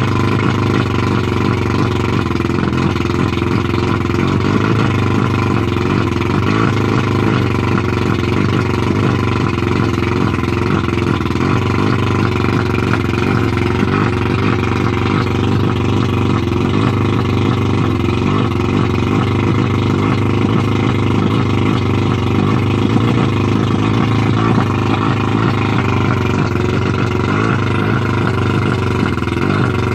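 1989 Mercury 100 two-stroke outboard motor at a steady fast idle, about 1200 to 1400 RPM.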